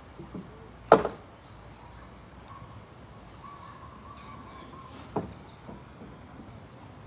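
Two sharp knocks about four seconds apart, the first much louder, with faint bird chirps in the background.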